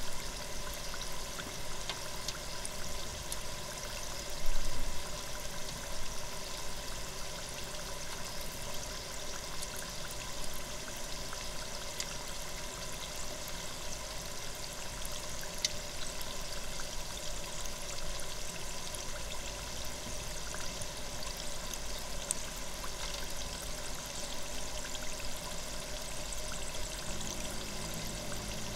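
A spring roll deep-frying in hot oil in an electric deep fryer: steady sizzling and bubbling with fine crackles, and a brief louder moment about four and a half seconds in.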